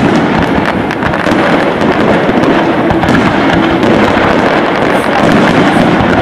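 Fireworks display: a continuous, loud barrage of overlapping shell bursts and crackles with no break.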